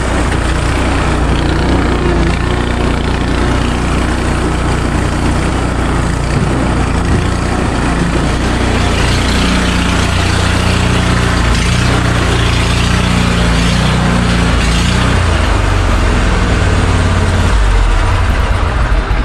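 Commercial lawn mower engine running steadily, loud and close, as the mower is driven up into an enclosed trailer.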